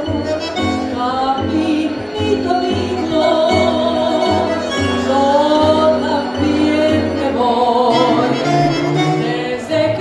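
Tango ensemble playing live: a woman singing over bandoneón, violin, double bass and keyboard, with the bass keeping a steady low pulse.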